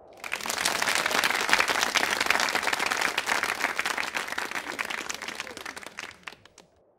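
Audience applause that swells in right at the start, then dies away into a few last scattered claps near the end.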